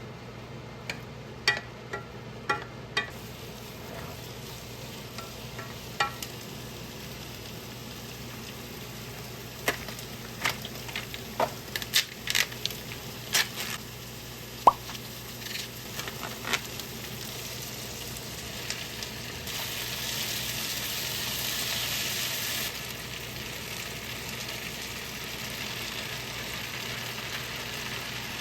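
Home cooking at the stove: food sizzling in a pan, with utensils clicking and clinking against it, most of the clinks in the middle stretch. About twenty seconds in, the hiss grows louder for a few seconds and then settles back.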